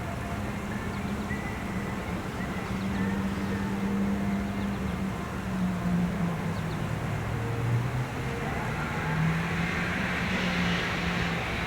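Road traffic: vehicle engines humming low and steady, with a car passing by near the end.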